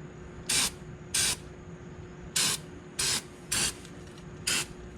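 Aerosol spray can giving six short sprays, each a fraction of a second long and irregularly spaced, onto an oil-leaking spot near a car engine's oil filter.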